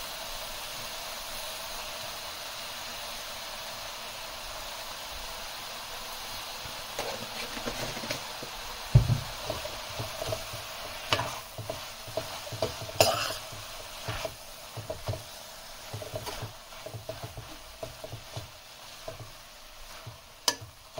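Spinach and fenugreek leaves sizzling in a kadhai with a steady hiss. From about seven seconds in, a spoon stirs the leaves, scraping and knocking against the pan in irregular strokes, with one heavier thump about nine seconds in.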